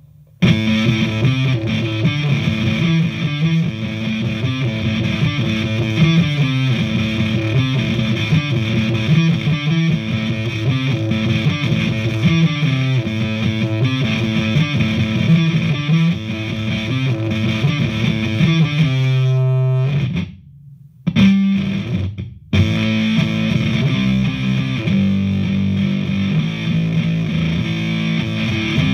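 Distorted electric guitar, a Vintage V100 Les Paul-style guitar played through a custom distortion patch on a DigiTech GNX3 multi-effects pedal into an H&K Attax amp, playing a continuous riff. The playing breaks off twice for a moment about two-thirds of the way through, then carries on.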